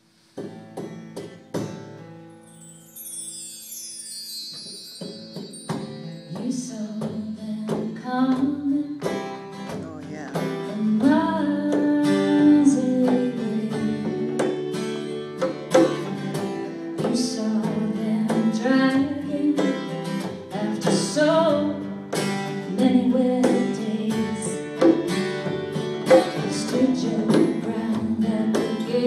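Small band playing a slow song live: guitars and light percussion, with a woman singing lead from about six seconds in. The music starts softly and builds over the first ten seconds.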